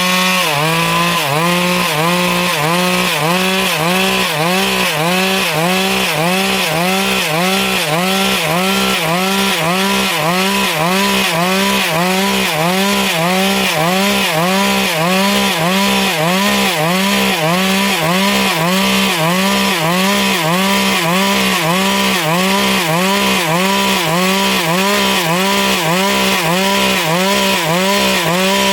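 Stihl MS 382 two-stroke chainsaw held at high revs and cutting steadily through wood, the engine note wavering in an even rhythm about one and a half times a second.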